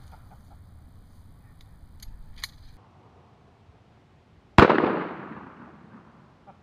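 A single 12-gauge shotgun blast from a Dragon's Breath incendiary shell about four and a half seconds in, its report dying away over a second or so. A few faint clicks come about two seconds in.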